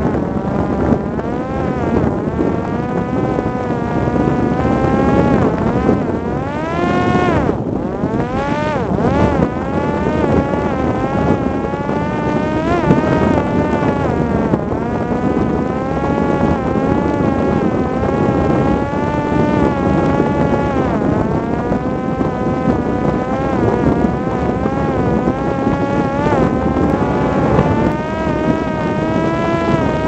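Electric motor and propeller of a Parrot Disco fixed-wing drone whining in flight, its pitch wavering up and down with throttle and airspeed. It dips sharply and climbs back a couple of times, about seven to nine seconds in, over a steady rush of air.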